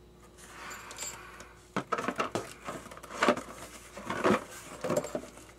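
Handling noise: a soft rustle, then from about two seconds in an irregular run of light clatters and clinks of small hard objects being moved about, as one hanging ornament is put down and the next picked up.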